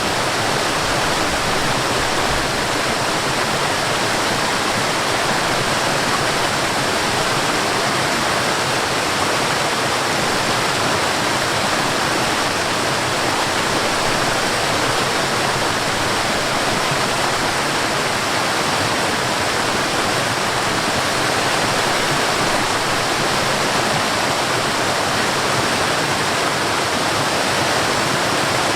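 Steady rushing of water from a small waterfall and stream, an even, unbroken wash of noise.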